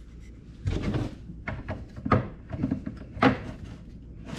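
A series of hard plastic knocks and clunks as the handle is worked into the tip of a Curve Industries snowmobile ski and the ski bumps the wooden workbench.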